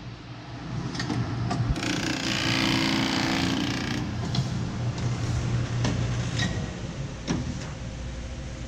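Horizon BQ-140 single-clamp perfect binder running a binding cycle: a steady motor hum with scattered mechanical clicks and clunks, and a louder, rough rasping stretch about two seconds in that lasts a couple of seconds.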